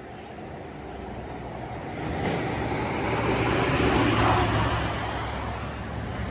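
A car passing by on a wet road: tyre hiss and engine hum swell, peak about four seconds in, then fade.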